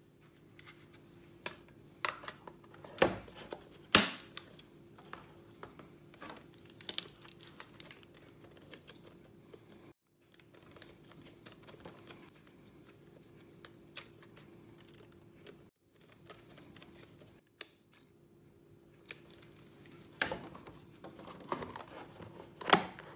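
Clicks, taps and knocks of a plastic digital multimeter case being handled and put back together, its back cover fitted and screwed down with a small screwdriver. A couple of sharper knocks come a few seconds in, with another cluster of clicks near the end.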